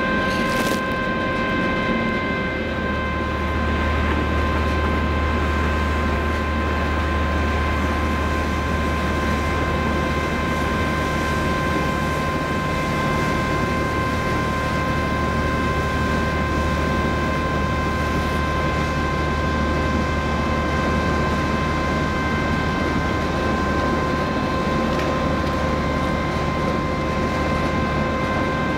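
Steady low drone of ship engines and machinery across the harbour, with several steady whining tones above it. The low drone grows stronger a few seconds in and eases a little near the end.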